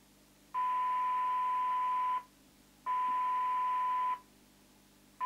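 Signal generator's steady 1 kHz test tone, received and played through the Cobra UK75ST CB radio's speaker. It cuts in twice for about a second and a half each and starts again at the end, as the squelch preset is turned and the squelch opens and closes around the signal.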